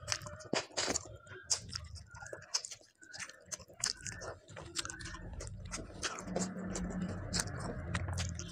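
Close-miked wet chewing and mouth smacks of a person eating a handful of rice and fish curry, with many short clicks of lips and food. A low steady hum sits under the chewing over the last few seconds.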